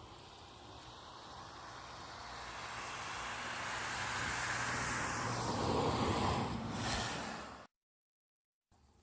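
A road vehicle passing close by. Its tyre and engine noise grows louder over several seconds and drops in pitch as it goes past, then cuts off suddenly near the end.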